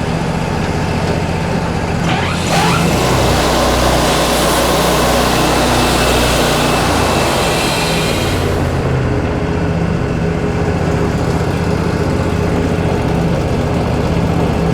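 Wood-Mizer LT40 band sawmill's engine running steadily. From about two seconds in to about nine seconds, the band blade cuts through a yellow pine log, and a loud hiss rises over the engine, which drops in pitch under the load.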